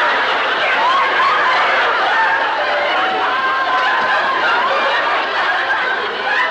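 Studio audience laughing steadily, many voices overlapping without a break.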